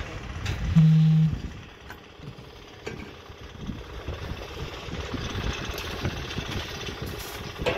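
Concrete being mixed by hand in a steel mixing tray: irregular scrapes and knocks of a hoe and shovel through the wet mix. About a second in, a loud low hum lasts about half a second.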